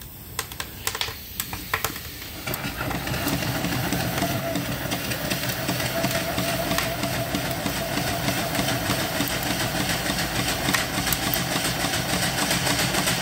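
Small vertical steam engine being started: a few clicks as the steam is turned on, then from about two and a half seconds in the engine runs with a steady, rapid hissing of exhaust steam.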